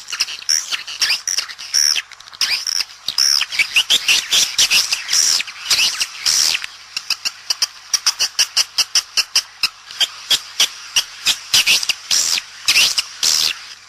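Swiftlet calls: a fast, continuous stream of sharp dry clicks mixed with high, chittering twittering chirps. This is the courtship-type ('birahi') call played as an outside lure to draw swiftlets to a bird house.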